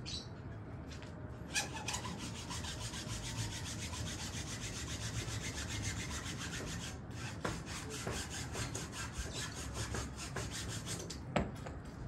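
Hand saw cutting through a wooden plank in rapid, even strokes, pausing briefly about seven seconds in. A sharp knock comes near the end.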